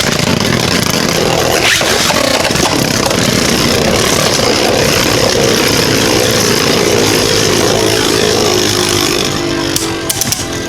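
Two Beyblade Burst tops spinning and grinding against each other in a plastic stadium: a loud, steady whirring and scraping whose pitch slowly falls as they lose speed, with a few sharp clicks near the end.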